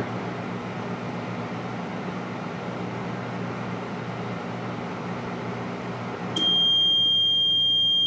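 1983 Kenmore convection microwave running on its microwave cycle with a steady low hum. About six and a half seconds in, the cycle ends: the hum stops and the end-of-cycle buzzer sounds one steady high-pitched tone for about two seconds.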